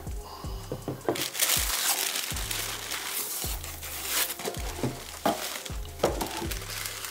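Tissue paper crinkling and rustling as a shoe box is unpacked by hand, over background music with a steady bass beat.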